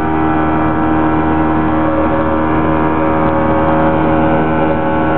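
Small open boat's motor running steadily at cruising speed, one even drone with no change in pitch, over the rush of water along the hull.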